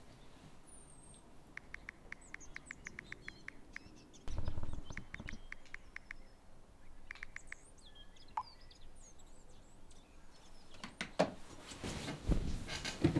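Smartphone keyboard clicks as a text message is typed, in quick runs of about six taps a second, over small birds chirping outside. A soft low thump comes about four seconds in, and near the end the bedding rustles and knocks as someone moves in bed.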